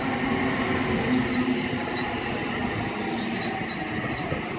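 An 8-car Oscar electric multiple unit running at the platform as it comes in to stop, a steady rail noise with a low hum.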